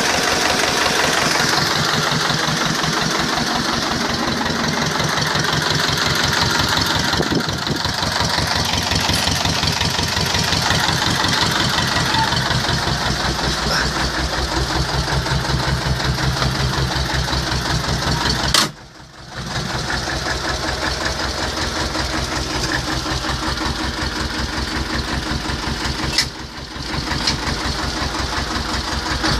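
T-25 tractor's two-cylinder air-cooled diesel engine running steadily with an even, rapid beat, its tone shifting slightly now and then. The sound drops out suddenly for about a second roughly two-thirds of the way through, and again more briefly near the end.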